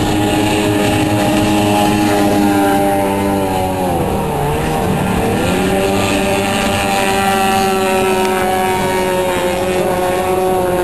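Outboard race boats running at speed, a steady engine whine that dips in pitch about four seconds in and climbs back up.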